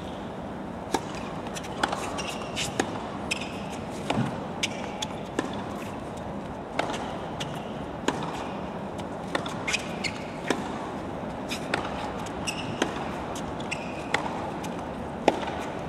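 Tennis rally: sharp racket strikes and ball bounces at irregular intervals of roughly half a second to a second, with a few brief high squeaks, over a steady background hum of the stadium.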